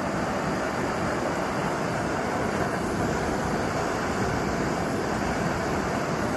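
MSR Pocket Rocket 2 canister stove burning at a strong flame under a kettle of water: a steady hiss of gas and flame.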